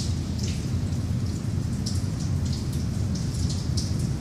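Underground subway station background noise: a steady low rumble with scattered brief hissing sounds.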